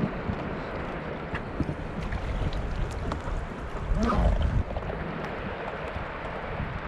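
Shallow river current running over stones, with wind buffeting the microphone; a louder low gust of wind noise comes about four seconds in.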